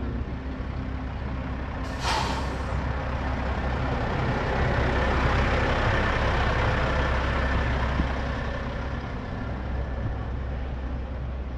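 Heavy diesel truck running, with a sharp air brake hiss about two seconds in; the engine noise then swells to its loudest around the middle and eases off near the end.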